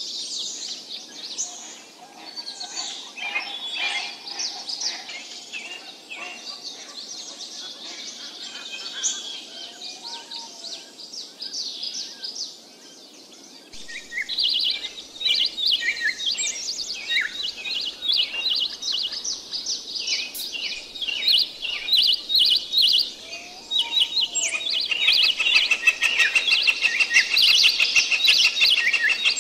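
Birds chirping and calling in many short high notes. They grow denser and louder about halfway through, and a fast trill joins in near the end.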